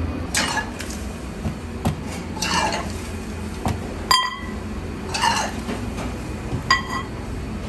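Ramen bowls and metal utensils clinking and clattering in a ramen kitchen, with two clear ringing clinks, one about four seconds in and one near the end, over a steady low hum.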